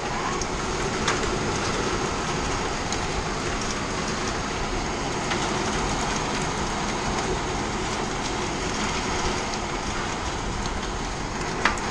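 Hail and heavy rain pelting a shipping-container house: a steady, dense rush with scattered sharp ticks of single hailstones striking.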